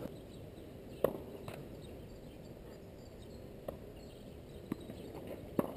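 A few scattered sharp taps and knocks, the loudest about a second in, over faint outdoor background.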